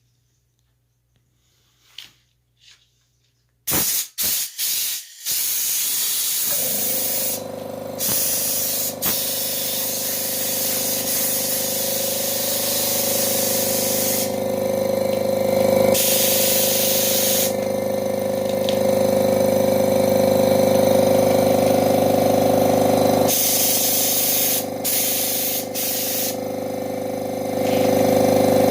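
Low-noise air compressor starting up about four seconds in, then running with a steady motor hum under loud hissing air that cuts out briefly several times.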